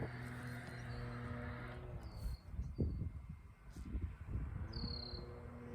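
Faint background: a steady low hum that fades out in the middle and returns near the end, with two brief high chirps.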